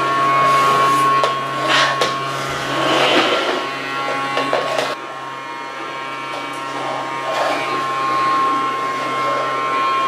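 Toy vacuum cleaner running: its small motor gives a steady high whine over a low hum, with a few short light knocks.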